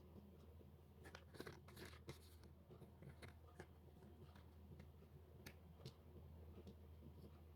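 Faint paper-craft handling: quiet rustles and small clicks of paper and tools, busiest a second or so in, over a low steady hum.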